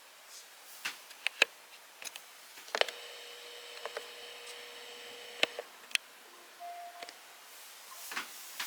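Scattered clicks and knocks from buttons being pressed and a weather alert radio being handled. About three seconds in, a faint steady electronic tone starts on a click and stops on another about three seconds later, and a short beep follows.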